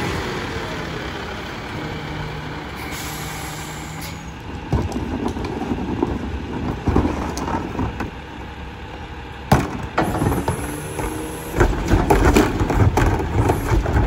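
Freightliner Econic McNeilus rear-loader garbage truck running, with a hiss of air from its air brakes about three seconds in. Then irregular knocks, thuds and clatter of trash being tipped into the rear hopper, with a sharp bang about nine and a half seconds in, growing busier near the end.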